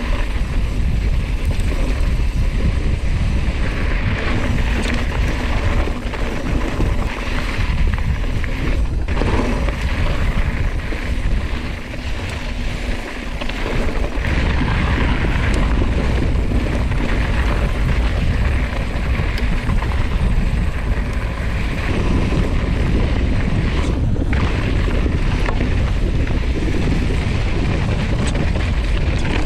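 Wind rushing over the handlebar camera's microphone as a mountain bike rolls fast over a gravel and volcanic-rock trail, with a steady low rumble of tyres on loose stones and the bike rattling. A couple of sharper knocks come through, about nine seconds in and again near the end.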